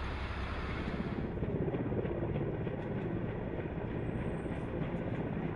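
Helicopter running, a steady engine-and-rotor noise that changes in character about a second in.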